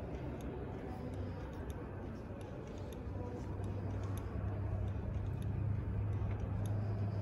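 Room tone of a large indoor exhibition hall: a steady low hum that grows louder about three seconds in, with faint light ticks.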